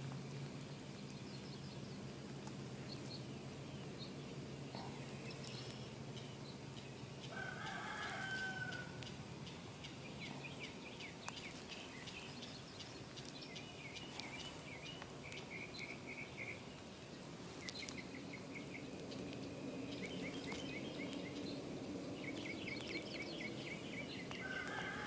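Bird calls: a longer pitched call about eight seconds in and again at the very end, and several runs of rapid chirps in between, over a low steady hum.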